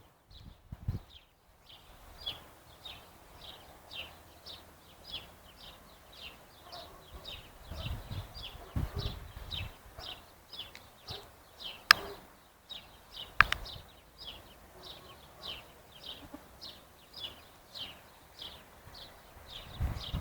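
A small animal's short, high chirp repeated evenly about twice a second, with two sharp clicks about halfway through and a few faint low thumps.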